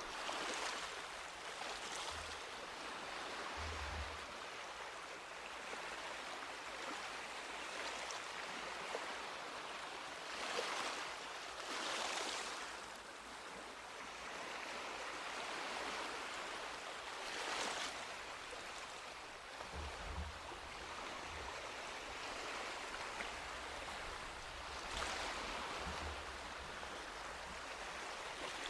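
Sea waves washing onto a beach: a steady hiss of surf, with louder waves breaking about six times, several seconds apart.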